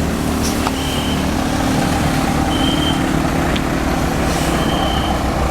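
Tour bus diesel engine running steadily with a low drone. A short, faint high beep repeats four times, about every second and a half to two seconds.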